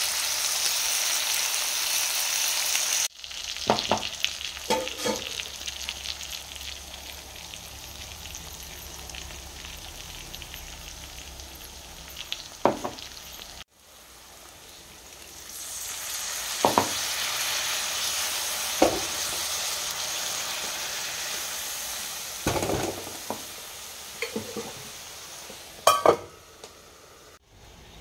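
Diced potatoes and bitter gourd sizzling in oil in a kadai while a silicone spatula stirs them, scraping and knocking against the pan now and then. The sizzle is loudest for the first three seconds, then cuts off sharply and carries on quieter with scattered scrapes.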